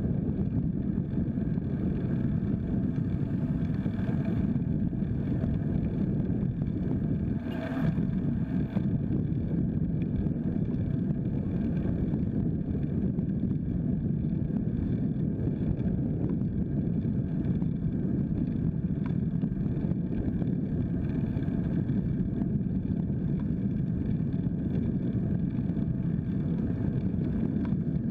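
Steady wind buffeting and road rumble on a bike-mounted camera's microphone while riding a folding bike on pavement, with one brief sharp sound about eight seconds in.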